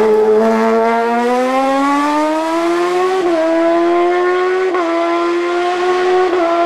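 Silver Car S2 hillclimb race car's engine accelerating hard out of a hairpin, its note rising steadily, then holding high with short breaks in the note three times.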